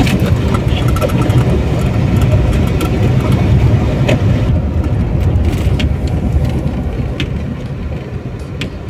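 Car running and tyre rumble heard from inside the cabin while driving slowly along a town street, with a few sharp knocks over the rough road surface. The rumble eases in the last couple of seconds.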